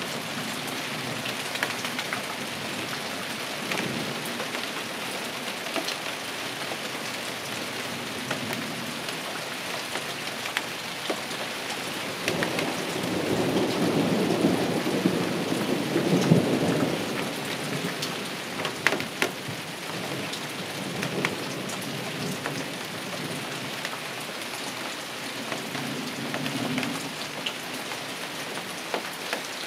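Heavy rainstorm with large raindrops: steady rain dotted with sharp ticks of single drops. Thunder rolls in about halfway through and is the loudest part, with fainter rumbles near the start and near the end.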